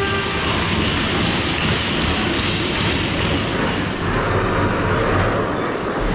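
The rink's horn cuts off just after the start, then a loud, steady rush of ice hockey arena noise with scattered thuds and taps.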